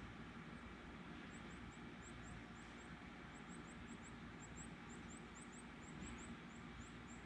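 Quiet outdoor background: a faint, steady low drone, with faint high chirps repeating about three or four times a second from about a second in.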